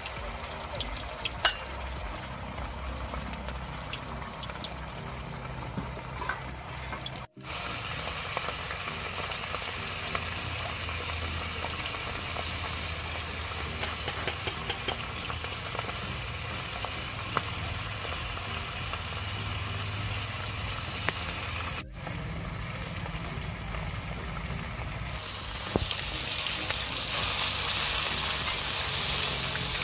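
Fish sizzling as they fry in hot oil in an iron wok, a steady crackling hiss with small scattered ticks. The sizzle grows louder near the end as a metal spatula turns the fish.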